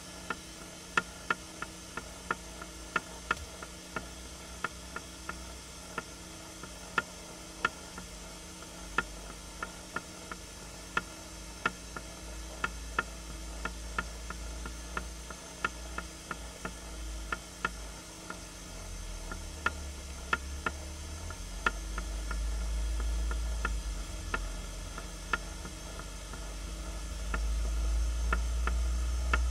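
Sharp, regular ticking clicks, a little more than one a second, over a steady faint hiss and hum. A low rumble swells up twice in the second half.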